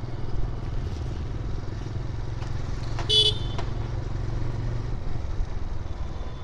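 Motorcycle engine running steadily while riding, with a short horn toot about three seconds in.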